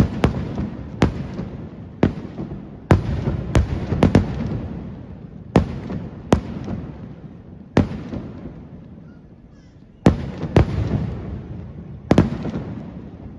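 Kerala temple fireworks (vedikkettu) going off: aerial shells bursting in sharp bangs, about a dozen at uneven intervals, with rumbling echoes and crackle between them. The bangs ease off for a couple of seconds past the middle, then start again.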